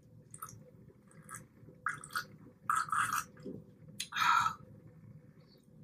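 Close-miked gulps and swallows of Coke from a glass, several in a row, with a louder breathy sound about four seconds in.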